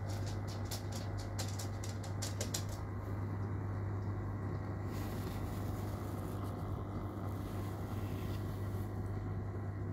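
Steady hum of the tank's aquarium air pump. A rapid run of light clicks sounds in the first three seconds.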